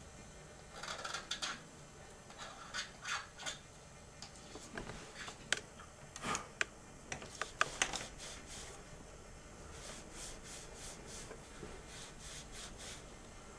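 Faint hand scraping of a cast recording cylinder's end with a small blade: irregular light scrapes and a few small sharp clicks. Near the end come quicker, even rubbing strokes, about three a second, as the edge is tidied by hand.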